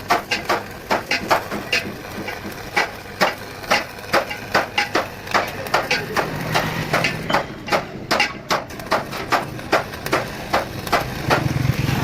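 A hammer repeatedly striking metal, about three blows a second at an uneven rhythm, typical of panel beating on a bus body.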